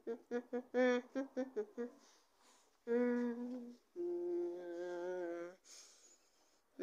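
A person humming a wordless tune: a quick run of short notes, then two long held notes.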